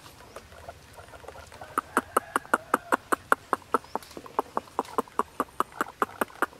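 Rapid, even clicking, about five clicks a second, starting a little under two seconds in, with a faint steady high tone beneath it.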